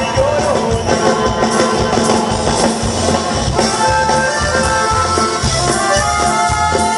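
A live band playing amplified dance music: a steady bass and drum beat under guitar, with long held melody notes coming in about halfway through.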